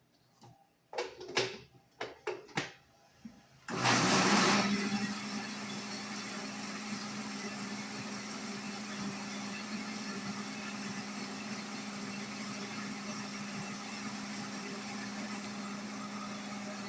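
A few knocks as the blender is set up, then about four seconds in a countertop blender starts with a loud burst and runs at a steady pitch, blending eggs, milk and oil into a liquid batter.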